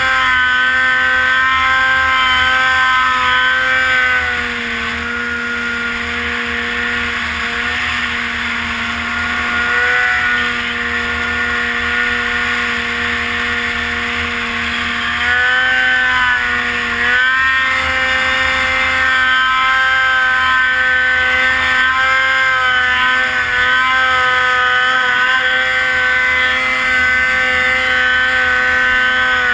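Polaris RMK snowmobile's two-stroke engine running steadily under throttle while climbing through snow. The engine note eases off about four seconds in, then picks up again around fifteen seconds with a brief dip near seventeen seconds.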